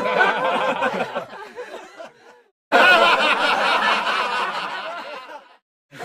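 Laughter sound effects: one laugh fades out about two seconds in, and after a brief silence a new burst of laughter starts and fades away near the end.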